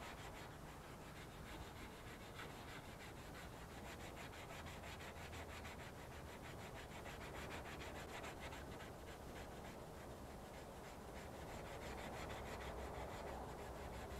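Hand sanding of cured body filler on a car's front fender: a sanding pad wrapped in sandpaper is rubbed back and forth with quick strokes, a faint, steady scratchy rubbing. The filler is being smoothed down before primer and paint.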